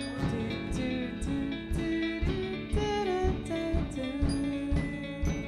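Background music with a drum beat and a melody line that slides up and down in pitch.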